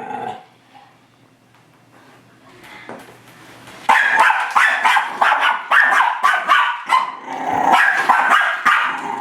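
Miniature schnauzer barking in a fast, unbroken run, starting about four seconds in after a quiet spell: the dog is attacking its own reflection in a mirror.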